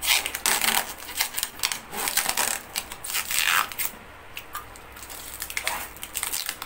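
Thin protective plastic film being peeled off a gas stove's steel top, crinkling and crackling in a run of bursts. It eases off about four seconds in and picks up again near the end.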